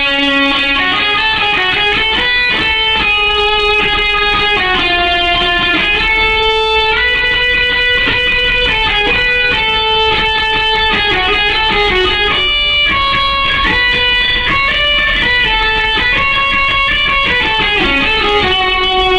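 Instrumental music: a guitar playing a melody of held notes.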